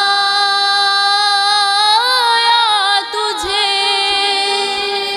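A young woman's solo voice sings an Urdu naat, holding a long ornamented note with a melodic turn about two seconds in. After a brief break near three seconds she holds a second wavering note that slowly fades.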